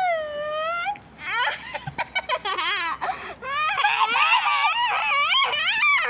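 A child's high-pitched, play-acted crying: a long wavering wail, then quavering fake sobs from about a second in.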